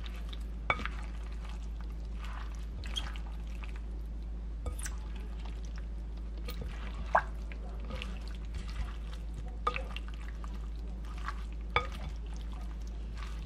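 Acorn jelly cubes and vegetables being tossed in a wet seasoning in a glass bowl with a silicone spatula: soft wet squishing and sliding, broken by several sharp clicks of the spatula or food against the glass. A steady low hum runs underneath.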